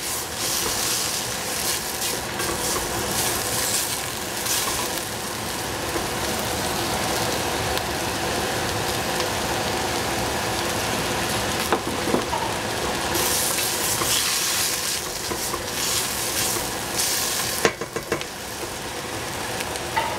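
Vegetables frying in a hot pan: a continuous sizzle that swells louder at the start and again about two-thirds of the way through, with a few sharp clicks of stirring against the pan about twelve and eighteen seconds in.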